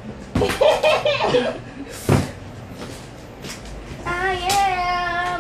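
A girl's voice making brief wordless sounds, with a short sharp sound about two seconds in, then from about four seconds a long held sung note that wavers slightly.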